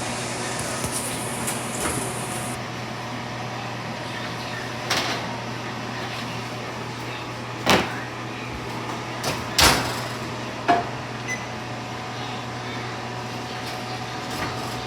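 Oven door and metal bundt pan being handled as a baked cake is taken out of the oven: several sharp knocks and clanks, the loudest a little past the middle, over a steady low hum.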